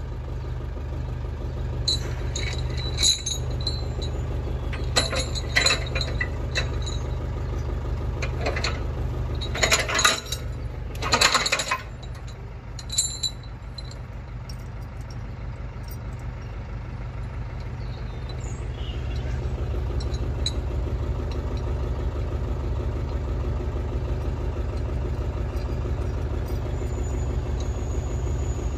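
A motor vehicle engine idling steadily, a little louder in the second half. Over it, a metal chain clinks and rattles in the first half, loudest in two short rattles near the middle.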